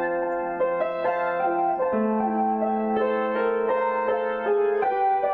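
Solo piano improvisation: slow, gentle chords held under a melody, with the bass note changing about two seconds in.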